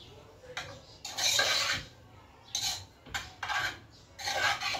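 A metal spoon stirring and scraping against a metal pot of sautéing onion, tomato and seasonings, in about five separate strokes, the longest about a second in.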